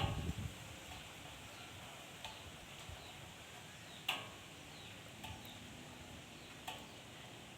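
Faint steady background with a few short, high chirps, birds calling, scattered through it; the loudest comes about four seconds in.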